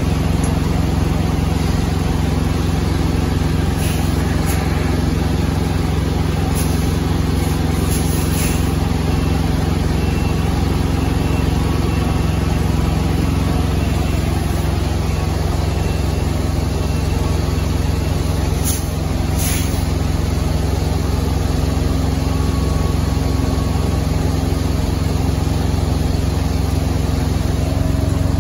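Semi-truck diesel engine idling steadily, a deep even drone, with a few faint high clicks.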